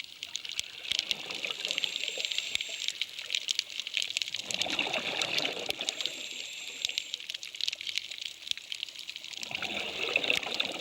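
Moving seawater swirling and trickling against stone, with a steady fizzing crackle. It swells into a rush about four seconds in and again near the end.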